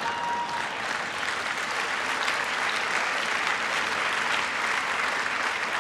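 Audience applauding, dense steady clapping after a punchline.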